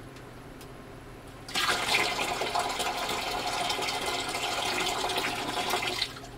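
Used dishwater poured from a collapsible bucket into a plastic tub already holding soapy water: a steady splashing pour that starts about a second and a half in and stops shortly before the end.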